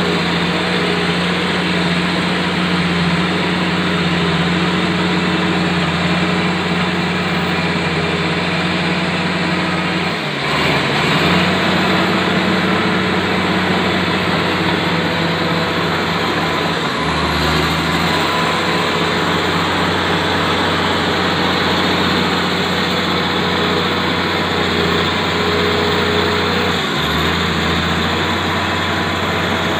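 Komatsu D85ESS bulldozer's diesel engine running steadily under work, its note briefly dipping and shifting about a third of the way in, again a little past halfway, and near the end.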